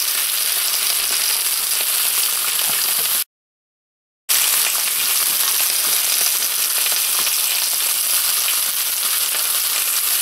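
Steady sizzle of food frying: chicken breasts searing on a ridged grill pan beside garlic fried rice in a skillet, over gas burners. The sound cuts out completely for about a second partway through.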